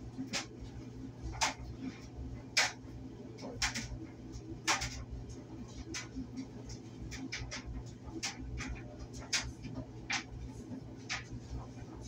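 Clothes dryer running: a steady low hum from the motor and turning drum, with irregular sharp clicks and knocks, roughly one a second, from the load tumbling against the drum.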